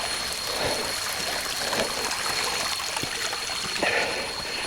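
Water trickling, with a steady high-pitched tone running over it.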